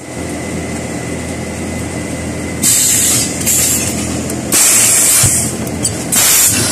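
Die-cutting press for trimming silicone keypad sheets, running with a steady motor hum. Four loud bursts of hiss break in, starting just under three seconds in, and the last comes near the end.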